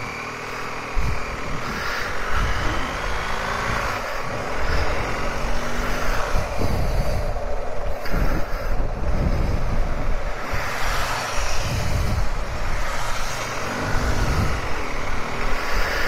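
BMW GS Adventure motorcycle engine pulling away and accelerating, its pitch rising and dropping several times as it goes up through the gears, with a heavy low wind rumble on the microphone.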